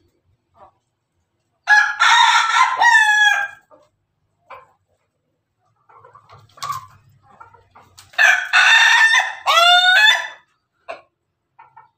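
An Ayam Ketawa (laughing chicken) rooster crowing twice, about six seconds apart. Each crow is a loud opening note that breaks into a quick run of short repeated notes, the breed's laughing crow. Soft clucks sound between the crows.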